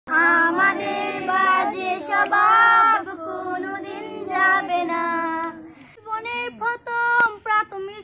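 Group of girls singing a Bengali song together without accompaniment, held sung notes throughout.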